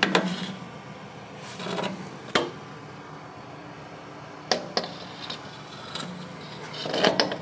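Handheld camera handling noise: scattered rubs and a few short knocks, about five in all, the last ones near the end, over a steady low hum.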